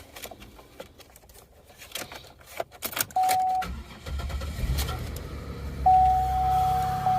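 Keys and clicks, then a Buick 3800 Series II V6 starts about four seconds in and settles into running. From about six seconds in a steady high squeal rides over the engine: the belt dragging over a seized tensioner pulley, which the owner takes for the pulley and not the alternator.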